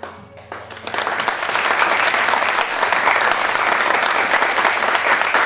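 Small theatre audience applauding: a few scattered claps, then full, steady applause from about a second in.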